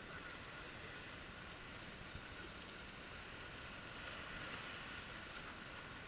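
Sea waves washing and splashing among the concrete blocks of a breakwater, a steady surf noise that swells a little about four seconds in.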